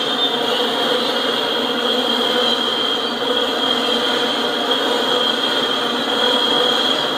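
Freight train's enclosed autorack cars rolling past close by: a steady rush of steel wheels on rail, with a steady high-pitched ring over it.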